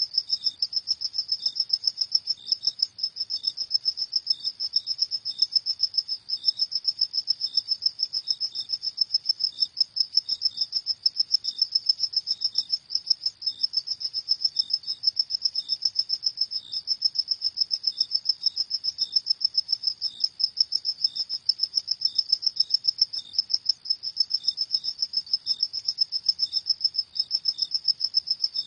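Crickets chirping without a break in a rapid, even pulse, a high steady trill with a second, lower cricket chirping in short notes beneath it.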